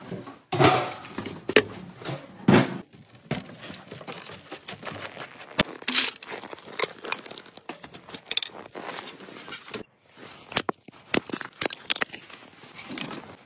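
A string of irregular handling noises: knocks, clicks and crunching, with a short ringing clink about eight seconds in. The loudest knocks come near the start.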